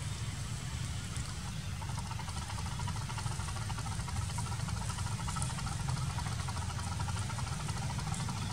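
A motor vehicle's engine running steadily under a constant low rumble, with a mid-pitched hum that sets in about two seconds in.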